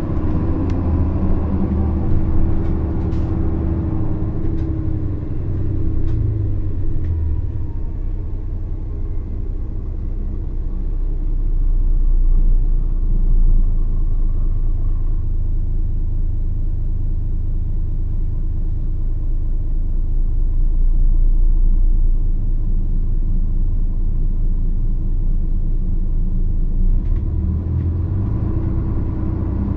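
Nissan Diesel KC-RM211GSN bus's FE6E six-cylinder diesel and automatic driveline running under way, a heavy low drone that swells twice, with the engine note coming back stronger near the end. This bus is known for an abnormally loud running noise.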